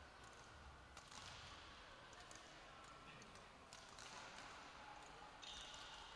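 Near silence: faint sports-hall room tone with a few soft knocks and taps.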